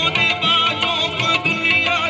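Live qawwali: men singing a naat with long, wavering, ornamented notes, accompanied by harmonium, over a steady drum beat.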